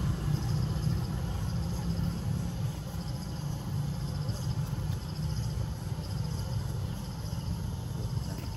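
Outdoor ambience: faint insects trilling in quick repeated pulses, which come and go, over a steady low rumble.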